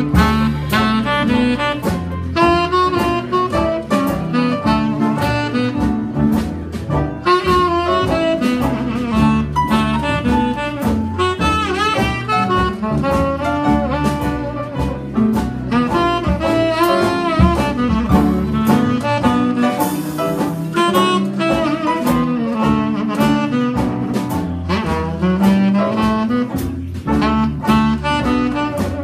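Live jazz combo in an instrumental break: a saxophone plays the lead melody over the rhythm section's bass line and drums keeping a steady beat.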